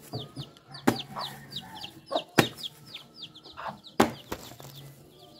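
Sharp knocks about every second and a half as a blade chops into a peeled jackfruit, splitting it apart. Many short, high, falling bird peeps run underneath.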